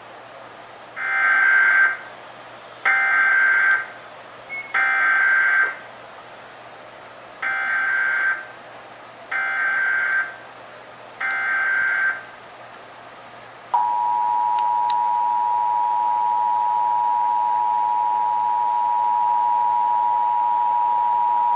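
Emergency Alert System broadcast test signals: six short bursts of warbling SAME digital data tones, in two sets of three. About 14 seconds in comes the steady two-tone EAS attention signal, which announces the alert message.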